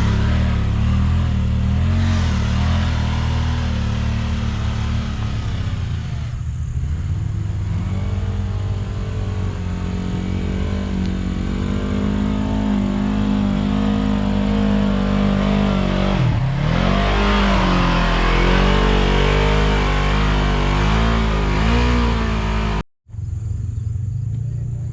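Side-by-side UTV engine running under load on a rough trail, its pitch rising and falling with the throttle. About two seconds before the end it cuts off abruptly, giving way to quieter outdoor sound.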